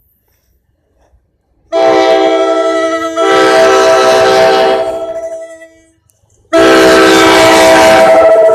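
Train locomotive's air horn sounding two long, very loud blasts, each a chord of several notes. The first starts about two seconds in and fades near the middle. The second starts about a second later and holds to the end.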